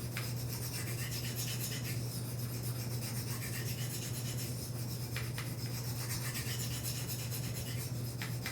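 Steel knife edge being stroked along the fine side of a diamond sharpening plate, a steady rasping rub while working up a burr. A steady low hum runs underneath.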